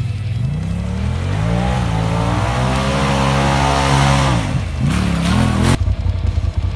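Polaris side-by-side UTV engine revving hard as it drives out of a mud hole: the pitch climbs over the first two seconds, holds high, then drops about four and a half seconds in, over a wash of noise from spinning tyres and flung mud. Near the end it changes abruptly to a low, even engine rumble.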